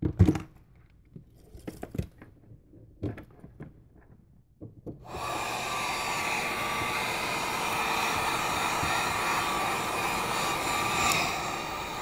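A few short handling knocks and clicks. About five seconds in, a handheld heat gun switches on and runs steadily with a faint whine as it heats a phone's screen to loosen it, and it stops shortly before the end.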